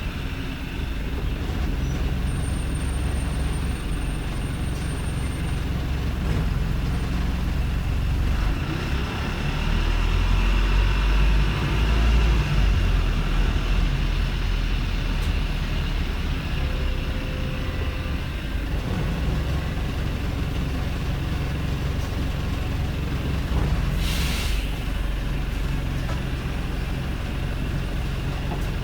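Wrightbus StreetLite bus's Daimler OM934 diesel engine running steadily, growing louder for a few seconds about nine seconds in. About 24 seconds in comes a short hiss of released air from the bus's air system.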